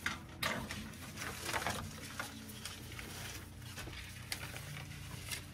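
Irregular rustling and crackling handling noises, short and uneven, over a steady low hum.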